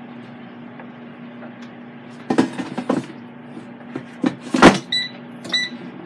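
Air fryer basket being handled and pushed back into a Power XL air fryer, with rattling knocks and then one heavy clunk as it seats, about two-thirds of the way in. Two short electronic beeps follow from the control panel as it resumes cooking, all over a steady low hum.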